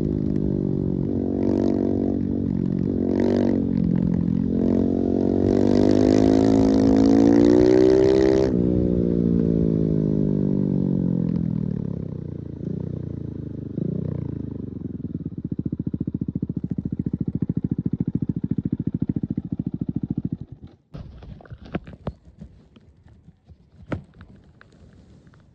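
Husqvarna 701's single-cylinder engine revving up under full throttle, its note rising for several seconds, then dropping away and falling in pitch as it slows. It settles into a steady low pulsing before cutting off suddenly about 21 seconds in, leaving a few scattered clicks and clatter.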